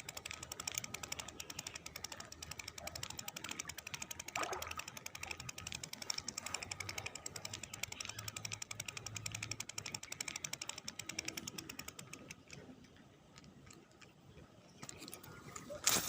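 Ultralight spinning reel being cranked to retrieve a lure, its gears clicking in a fast, even rhythm; the cranking stops about twelve seconds in, and a single sharp click comes near the end.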